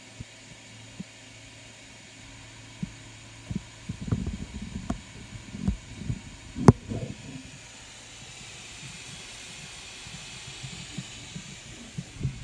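A run of handling knocks and clicks, the loudest a single sharp click about two-thirds of the way in, over a steady low hum and faint hiss.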